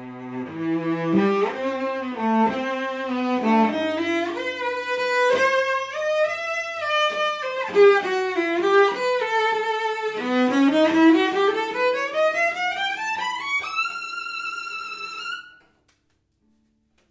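Solo cello, bowed, playing a fast passage of running notes, then a long rising scale up to a high note that is held briefly before the playing stops a little before the end.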